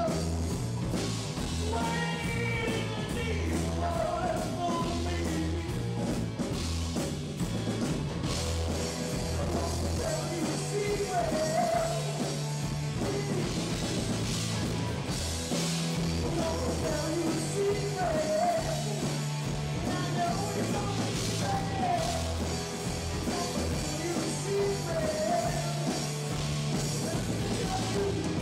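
Live rock band playing: a male lead vocal over two electric guitars, an electric bass and a drum kit.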